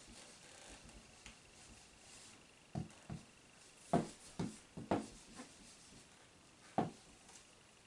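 Faint rubbing of a whiteboard eraser wiping marker writing off a whiteboard, then a run of light knocks and taps from about three seconds in.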